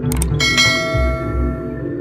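Background music: a bell-like chime is struck about half a second in and rings away over a second and a half, over sustained chords and a pulsing bass.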